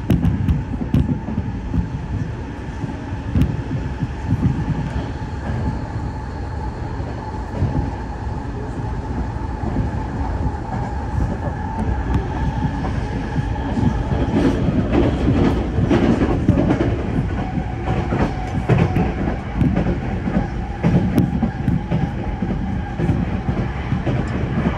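Electric commuter train running at speed, heard from inside the passenger car: a continuous rumble of wheels on rail with a steady whine over it. Rail-joint clicks come through, denser and a little louder from about halfway in.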